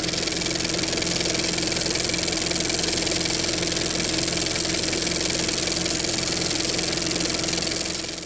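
An engine running at a steady speed, fading out at the end.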